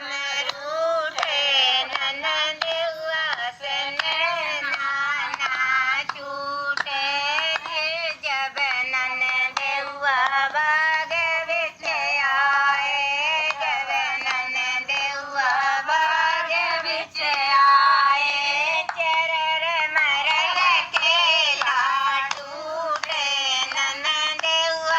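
High-pitched, synthetic-sounding singing voice with wavering pitch over music, like a sped-up cartoon song.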